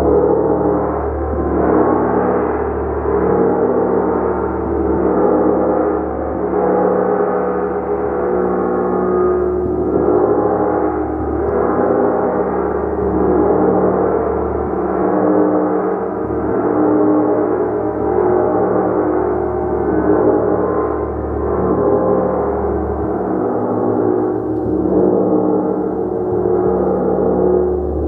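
Large gong played continuously with repeated soft strokes, a dense wash of overlapping sustained tones that swells and ebbs about every two seconds.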